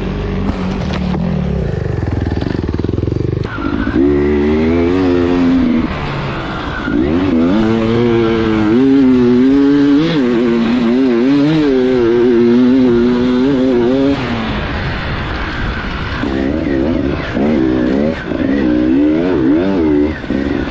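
Beta enduro motorcycle engine being ridden hard on a dirt track, its pitch rising and falling constantly with throttle and gear changes. It runs lower and rougher for the first few seconds, then revs up strongly, eases off briefly about two-thirds of the way through, and picks up again.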